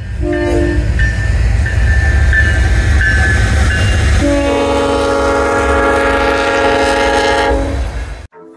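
Locomotive horn sounding over the heavy rumble of a passing train: a short blast at the start, then a long chord of several notes held for about three and a half seconds. Between the blasts come thin, high, steady tones. Everything cuts off suddenly near the end.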